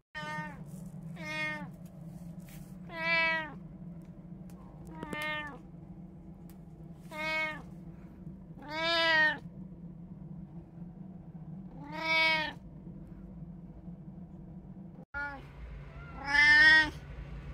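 Domestic cat meowing repeatedly, about nine separate meows each rising and falling in pitch, the loudest near the middle and near the end, over a steady low hum.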